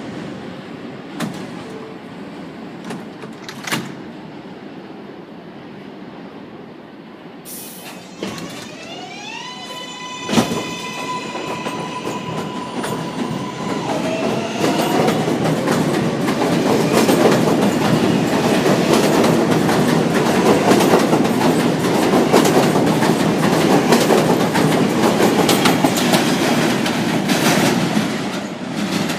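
R143 subway train pulling out: a short air hiss, then its traction motors' electronic whine rising in pitch and holding a steady tone. A second rising whine follows as the train gathers speed, and it passes with a loud rumble and wheel clatter over the rail joints.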